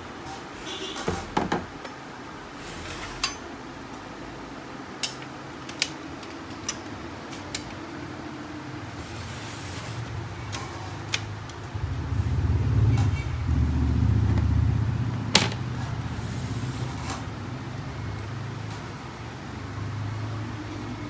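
Scattered sharp clicks and taps of printer parts, screws and nuts being handled and fitted during reassembly of a laser printer. A louder low rumble swells up about halfway through and fades a few seconds later.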